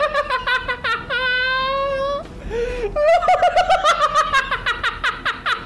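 High-pitched laughter in quick bursts of 'ha-ha-ha', each run ending in a long drawn-out squeal. The same laugh comes twice, with a short gap between the two.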